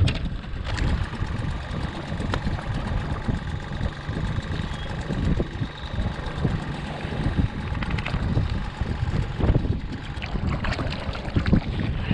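Wind buffeting the microphone in gusts, over the wash of water around a small inflatable boat, with scattered small knocks from handling.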